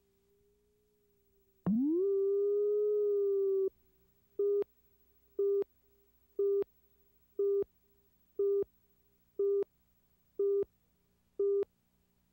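Electronic tone held for about two seconds, then eight short beeps of the same pitch, one a second: a countdown or test tone on the news videotape.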